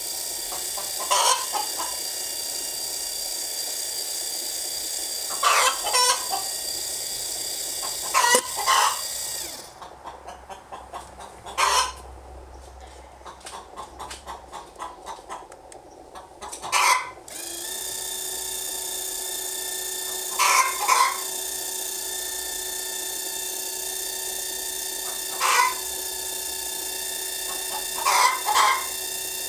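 Domestic chickens clucking, a short call every few seconds, over a steady background hiss. For several seconds in the middle the hiss drops away, leaving faint rapid ticking.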